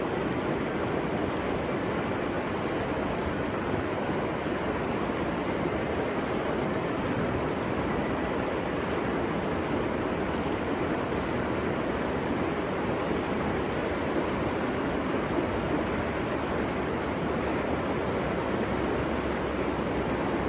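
River water rushing steadily, an even noise with no distinct events.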